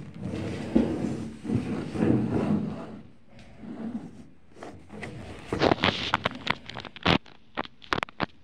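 Handling noise of a phone camera being turned round and set against a wooden table: rubbing and scraping for the first few seconds, then a run of sharp, irregular clicks and rustles over the last three seconds.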